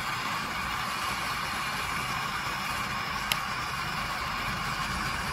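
Extremus canister gas camping stove burning steadily under a stainless steel pot of water that is starting to bubble toward the boil. There is one brief tick about three seconds in.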